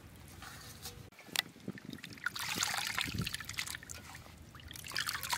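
Chopped goat intestine being washed by hand in a metal basin of water: sloshing and splashing, with water trickling and dripping back into the basin as a handful is lifted out. The splashing gets louder about two seconds in and again near the end.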